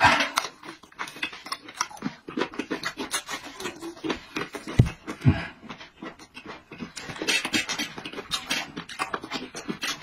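Close-up wet chewing and lip-smacking of a man eating roast sheep-head meat dipped in chili sauce: a dense run of irregular clicks and smacks, with two dull thumps about halfway through.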